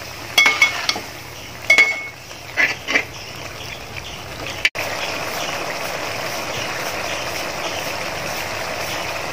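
A metal spatula scrapes and knocks against a metal pot a few times as beef in a watery masala gravy is stirred. After a short break the gravy bubbles steadily as its water boils off.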